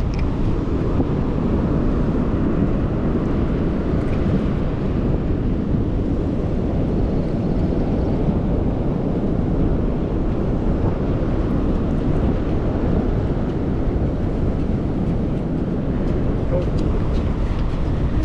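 Steady wind rumbling on the microphone over ocean surf on an open beach.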